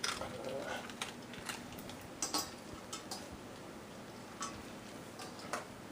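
Dachshund eating dry dog food from a bowl: scattered light clicks and clinks of kibble and bowl, irregular and a second or so apart.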